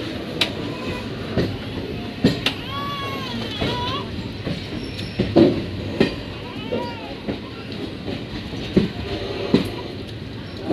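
Passenger train coach rolling slowly out of a station: steady rumble of the wheels with irregular sharp clunks, about one a second, as they cross rail joints and points. Two short high wavering tones sound near the start and the middle.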